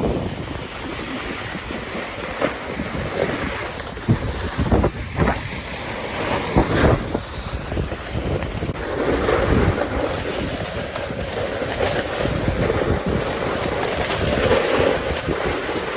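Wind buffeting the microphone while snowboarding downhill, with the board's edges scraping and hissing over the snow in a few louder strokes.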